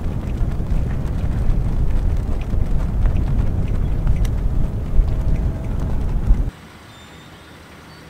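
Wind buffeting the microphone, a loud rumbling rush, as flags stream on their poles. It cuts off abruptly about six and a half seconds in, leaving only a faint steady background.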